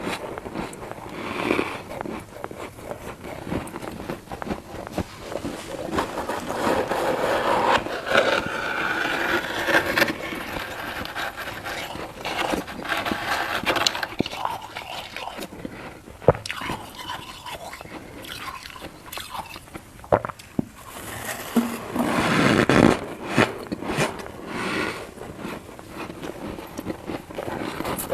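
Crunchy freezer frost being bitten and chewed, with scraping and many sharp crackles throughout.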